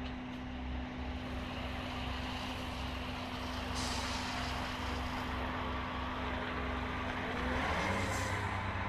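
Cat 345D L excavator's diesel engine running steadily at work, with a short hiss about four seconds in. The engine note shifts lower near the end.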